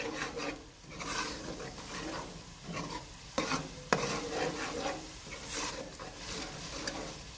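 Long metal spoon stirring and scraping a thick onion-tomato masala around a metal pan, with the masala sizzling in its oil as it cooks down. The spoon clicks sharply against the pan a few times.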